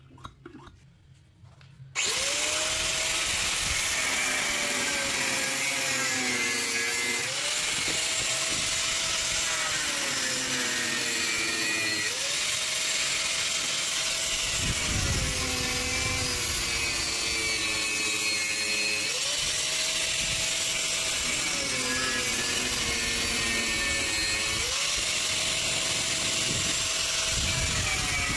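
Angle grinder with a thin cutting disc, cutting into the copper winding of an AC compressor motor's stator. It starts about two seconds in. Its pitch then sags slowly as the disc bites and jumps back up each time the cut is eased off, about every five seconds.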